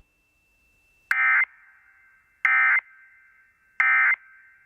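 Emergency Alert System End-of-Message data bursts: three short, loud, identical buzzy digital chirps about 1.3 seconds apart, closing a broadcast tornado warning.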